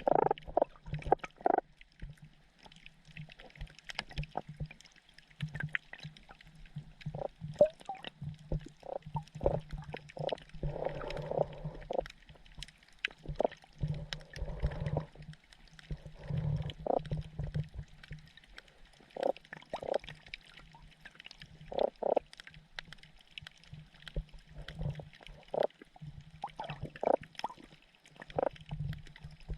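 Sergeant major damselfish making sounds underwater: many short pulses, some single and some in quick runs of several, over a low hum that comes and goes and faint scattered crackling.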